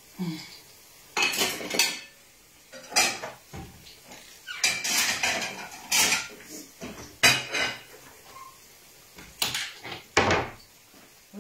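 Plates and cutlery clattering as dishes are handled and set down: a string of irregular clinks and knocks with short pauses between.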